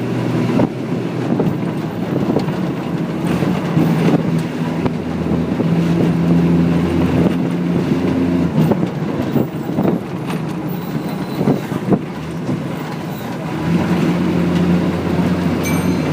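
Bus travelling, with its engine running as a low drone whose note shifts a few times as it changes speed, over steady road noise, and several sharp knocks and rattles from the body.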